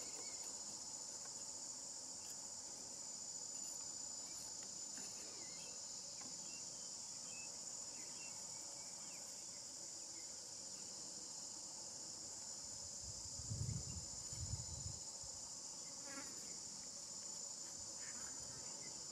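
Steady high-pitched insect chorus, a shrill buzz that does not let up, with a few faint ticks. About two-thirds of the way through come two short low thumps.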